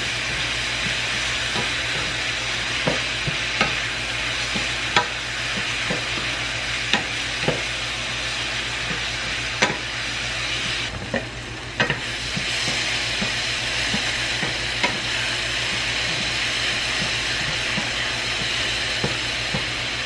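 Little Smokies cocktail sausages sizzling in a soy and hoisin sauce in a frying pan as a utensil stirs them, with an occasional tap of the utensil against the pan. The sizzle dips briefly a little past halfway, then comes back.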